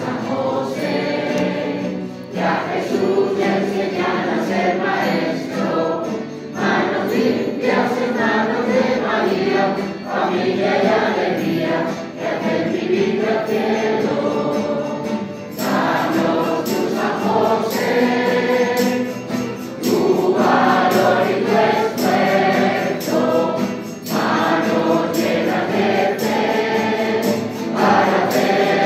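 Church choir singing a hymn in several voices, phrase by phrase with short breaks between phrases.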